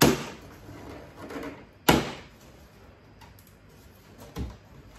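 Plastic hood vent trim on a Range Rover Sport bonnet being worked loose, its pressure clips popping free in sharp snaps: one at the start, another about two seconds in, and a fainter one near the end.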